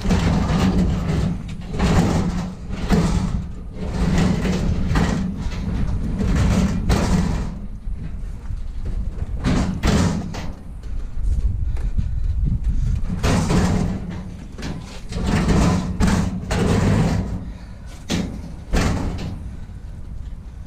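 A heavy metal stove being dragged and shoved into a vehicle: repeated scraping and banging of sheet metal, in uneven bursts with a couple of short pauses.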